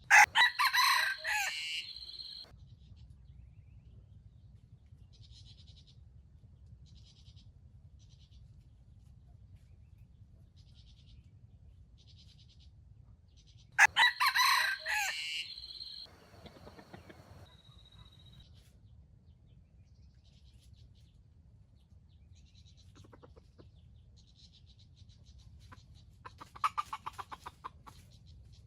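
A rooster crowing twice, the crows about fourteen seconds apart, with faint repeated chirping between them and a quick run of clucking calls near the end.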